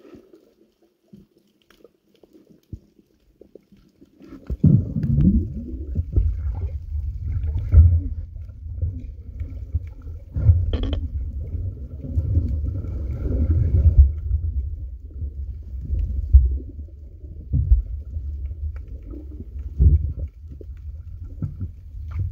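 Muffled low rumbling and sloshing of water over a submerged camera's microphone. It comes in suddenly about four seconds in and swells and falls unevenly, with occasional knocks.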